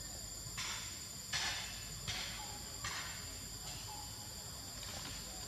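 Insects buzzing steadily at a high pitch, with about six short rushes of noise on top, the loudest about a second and a half in.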